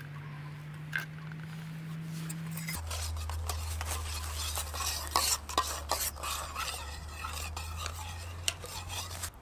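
Metal spoon stirring coffee in a stainless steel camping mug: quick, irregular clinks and scrapes against the sides, starting about three seconds in. A low steady hum runs underneath and drops in pitch as the stirring begins.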